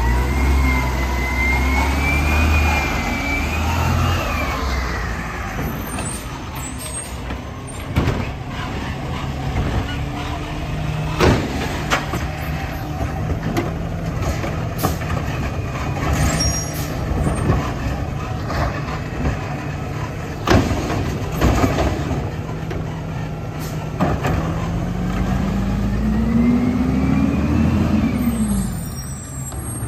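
Natural-gas Mack garbage truck with a Labrie automated side-loader arm running at the curb: a whine rising and falling in the first few seconds, then several sharp clanks and bangs as the arm lifts and empties a recycling cart, and near the end the engine revs up, rising in pitch, as the truck pulls away.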